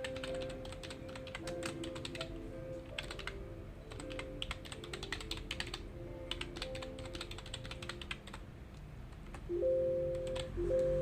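Typing on a computer keyboard: quick bursts of keystrokes with short pauses, over soft background music of gentle held notes that swell louder near the end.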